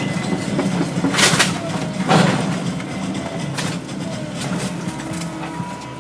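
Volvo excavator's diesel engine running steadily while wood cracks and splinters, with two sharp cracks about one and two seconds in, then fainter snaps and squeaks.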